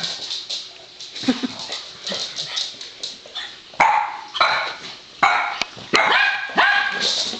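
Small dogs barking at play: a few scattered knocks and short yaps at first, then a quick run of high-pitched barks from about four seconds in.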